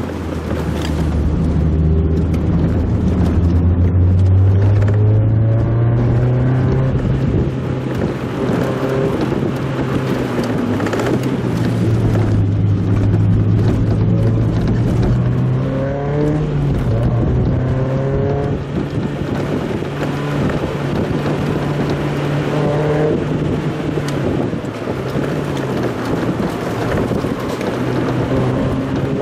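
Mazda Roadster engine heard from inside the car. Its note rises and falls repeatedly as it revs and changes gear, over road and wind noise, and it is played back sped up.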